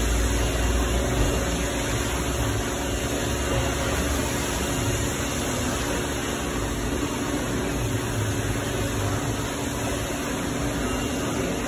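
Steady machinery noise: an even hiss over a low hum, with no distinct events.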